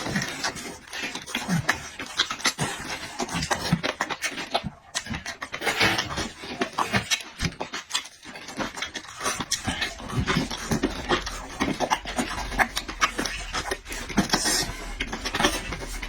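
A person eating close to the microphone: irregular chewing, smacking and slurping mouth sounds with breathing.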